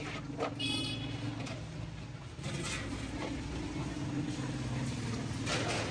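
A steady low engine hum, with sharp metallic clanks of large steel cooking pots and lids being handled: one just under a second in that rings briefly, and a cluster near the end.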